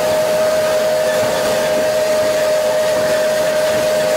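Narrow-gauge steam locomotive's whistle held in one long, steady blast over a steady hiss of steam, heard from inside the engine's cab.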